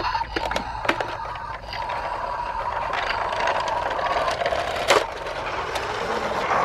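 Toy ambulance running along, a steady rattling whir with a few sharp clicks.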